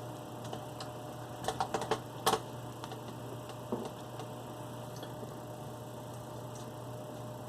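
A quick cluster of light clicks and taps about a second and a half in, and one more near four seconds, over a steady low hum.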